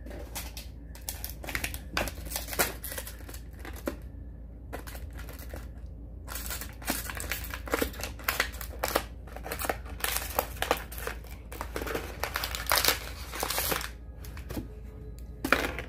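A puppy chewing a plastic water bottle, the plastic crunching and crackling in irregular clusters. The crackling is sparse at first and thickest through the middle stretch.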